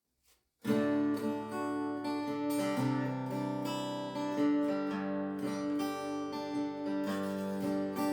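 Intro music: acoustic guitar strumming and picking, starting about half a second in.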